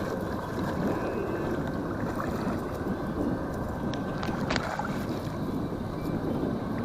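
Steady wind and water noise out on the water, with a single sharp click about four and a half seconds in.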